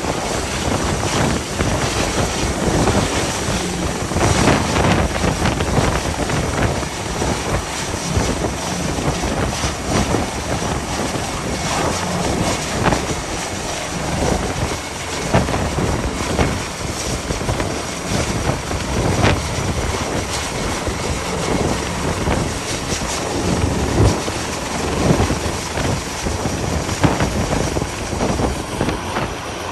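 Rescue helicopter's rotor and engine noise over strong gale wind buffeting the microphone, loud and gusty throughout.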